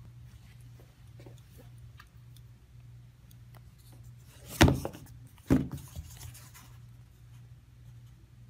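Two loud sharp knocks about a second apart, over a steady low hum, with a few faint clicks before and after.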